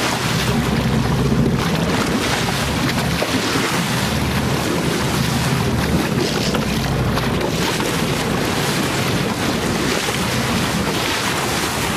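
Sea water rushing and churning alongside a moving boat, with strong wind buffeting the microphone and a steady low drone of the boat's engine underneath.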